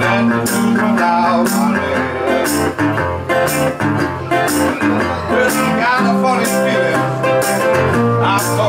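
Metal-bodied resonator guitar played bottleneck style with a slide, an instrumental blues passage. Low bass notes run under slide notes that glide and waver in pitch, with a regular beat about once a second.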